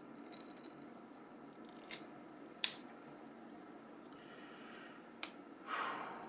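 A thin metal plate being pried off a Nokia 6170 phone's internals: a few sharp clicks, the loudest about two and a half seconds in, then a short scrape near the end. The plate gives a lot of resistance.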